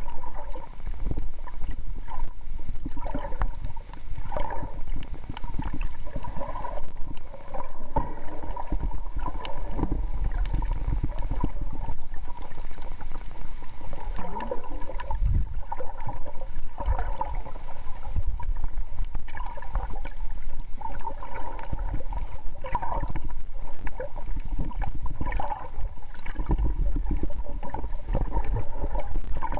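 Muffled underwater sound picked up by a submerged camera: a low rumble with irregular gurgling of water.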